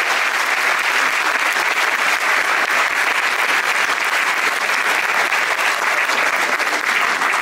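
An audience applauding steadily, dense clapping with no music under it.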